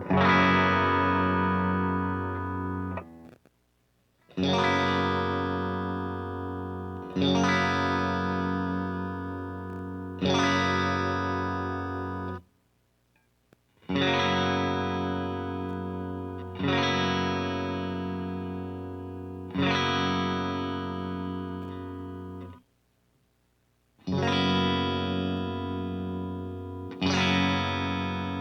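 Ibanez S670QM electric guitar playing chords through a Deluxe Reverb amp patch. Each chord is struck and left to ring for about three seconds, and the strings are muted to silence three times. The tone is not that clean.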